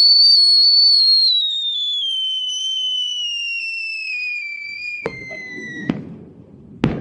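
Whistling firework: a long whistle falling steadily in pitch for about five seconds, cut off by a bang with a rumbling crackle. A second crack follows about a second later, then a quick cluster of sharp pops near the end.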